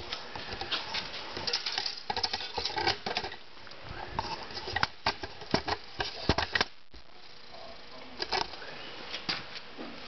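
A string of irregular clicks and light knocks, in uneven clusters with a couple of short pauses, over a faint steady hum.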